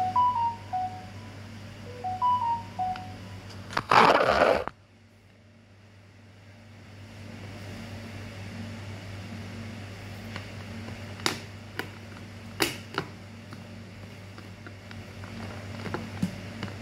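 Two short electronic beep tunes, each three or four quick tones at different pitches, then a loud burst of rustling noise about four seconds in, followed by a few sharp clicks over a steady low hum.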